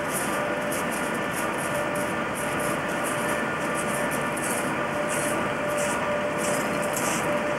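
British Rail Class 87 electric locomotive approaching with its train: a steady rushing noise of the train running, with a constant tone held through it.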